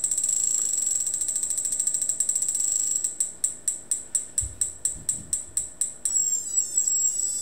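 General Radio Strobotac Type 1531 stroboscope ticking with each flash as it fires from an external signal, over a steady high whine. The rapid ticking slows to about five ticks a second about three seconds in, then gives way near six seconds to a whine sweeping down in pitch. The freshly repaired unit is flashing properly.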